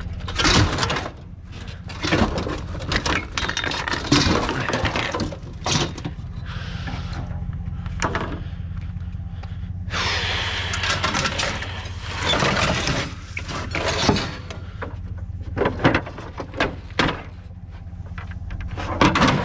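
Heavy metal clanking, banging and scraping as a drill press is wrestled up onto a loaded scrap truck. There are repeated knocks and crashes with stretches of grinding and dragging, over a steady low hum.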